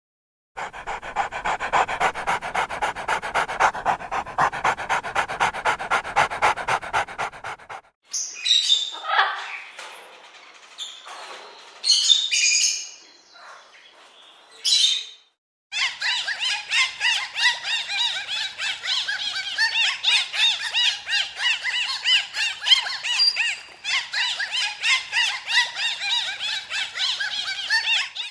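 A dog-like animal calling in fast repeated series, in three separate takes: first a rapid, even run of short calls, then a few scattered louder calls and noisy bursts, then a long run of quick, higher-pitched calls.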